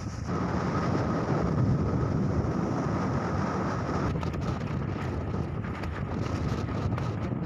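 Strong cyclone winds blowing hard and buffeting the microphone as a steady low rumble, with a few faint clicks about halfway through.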